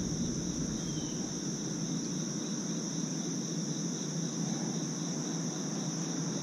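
Steady, high-pitched chorus of insects, crickets, droning continuously without a break, over a low background rush.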